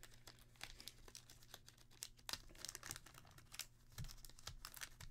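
Faint crinkling and rustling of a trading card being handled, a scatter of small irregular clicks and rustles.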